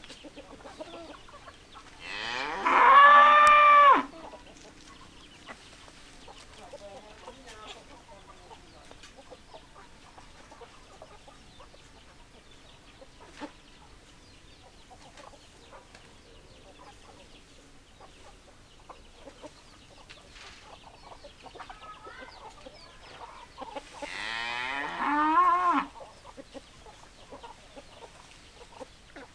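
Rooster crowing twice, once near the start and again about twenty seconds later; each crow lasts about two seconds, its pitch rising and holding before dropping at the end.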